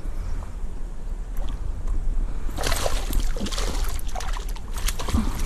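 Water sloshing and trickling over a steady low rumble. About halfway through it gets busier and splashier, with many small crackling clicks.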